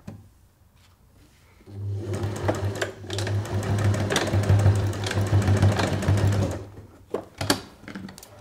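Domestic electric sewing machine stitching through a fabric tube. It starts about two seconds in, runs steadily with a fast needle rhythm for about five seconds, then stops, followed by a few clicks near the end.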